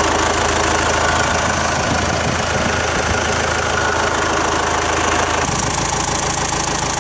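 John Deere 4045H 4.5-litre four-cylinder diesel engine of a 160LC excavator running steadily, heard close up over the open engine compartment; its tone changes about five and a half seconds in.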